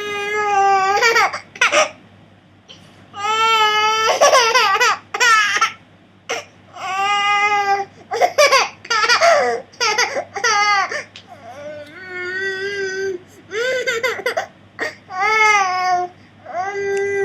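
Baby's string of loud, high-pitched, cry-like calls, each drawn out for up to about a second with a wavering, rising-and-falling pitch, separated by short pauses. The uploader takes this for attention-seeking fussing rather than real crying.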